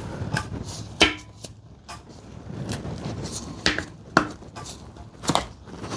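Scattered knocks and clicks of metal parts and tools being handled while a new rear main seal is started onto an engine's crankshaft, about five sharp knocks spread over a few seconds with low shuffling between them.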